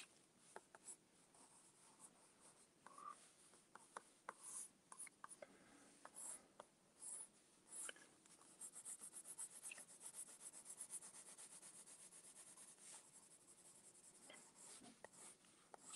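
Faint scratching of a blue coloured pencil on red paper: scattered sketching strokes, then quick, even back-and-forth hatching strokes from about halfway through.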